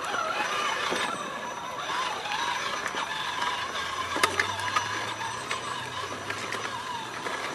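RC scale crawler trucks' electric motors and geared drivetrains whining as the trucks crawl slowly over rocks through shallow water, the whine wavering in pitch with the throttle. There are a couple of sharp clicks about halfway through.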